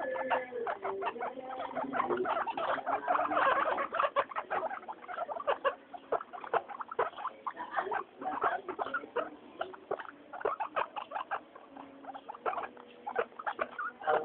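Guinea pigs making a quick, busy run of short squeaks and clicks, loudest and densest in the first few seconds.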